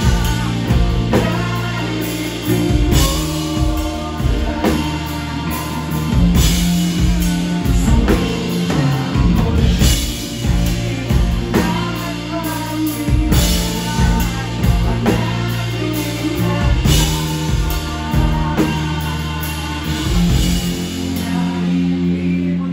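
Live rock band playing a song: drum kit, electric bass and electric and acoustic guitars, with a man singing.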